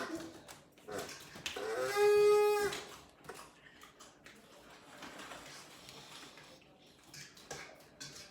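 A single high-pitched held vocal sound lasting about a second, steady in pitch, about two seconds in. After it come faint scattered clicks and light rustling at the table.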